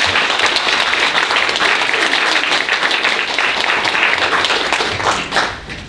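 Audience applauding, a roomful of people clapping, which dies away near the end.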